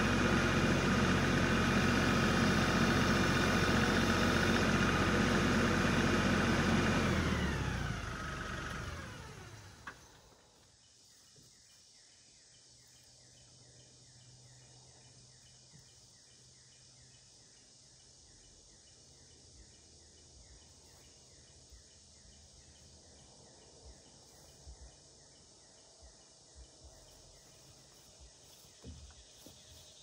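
LS compact tractor's diesel engine running steadily, then shut off about seven seconds in, its pitch falling as it winds down over a couple of seconds. Afterwards only faint insect chirping remains, with a few light knocks near the end.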